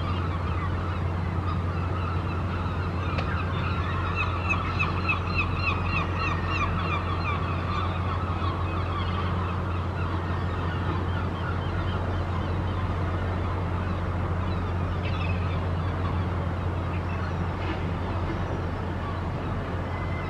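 Birds calling in quick repeated cries, busiest between about four and seven seconds in, over a steady low mechanical hum.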